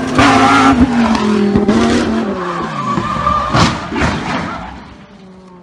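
Supercar engine running hard with tyres squealing as it slides through a hairpin, its note slowly falling in pitch. A sharp crack comes about three and a half seconds in, then the sound fades as the car moves away.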